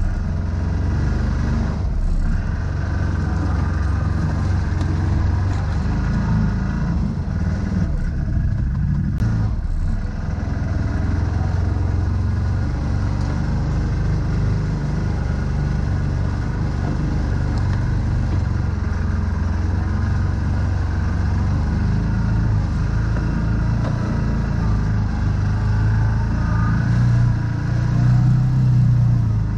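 CFMoto ZForce 1000 side-by-side's V-twin engine running steadily under light load as it crawls over a rough dirt trail, heard from the open cab, with a few sharp knocks from the chassis or brush along the way. The engine grows louder near the end.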